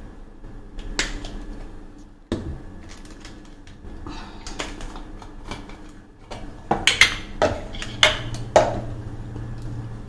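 Kitchen utensils and containers being handled: scattered sharp clicks and knocks, with a quicker run of bright clinks about two-thirds of the way in.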